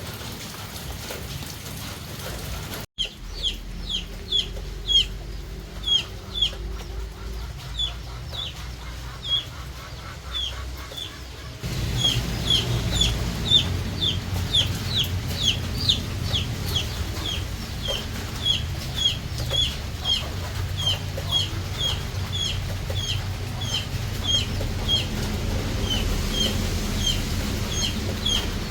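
Chicken chick peeping, a short high-pitched call repeated about twice a second. It starts after a steady hiss that ends abruptly a few seconds in, and a louder low background joins partway through.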